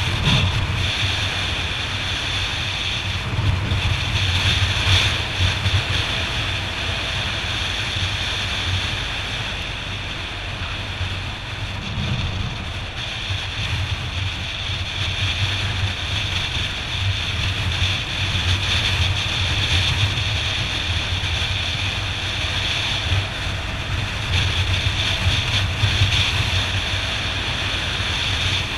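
Yamaha XT 600E motorcycle's single-cylinder four-stroke engine running at a steady cruising pace, with wind buffeting the microphone throughout.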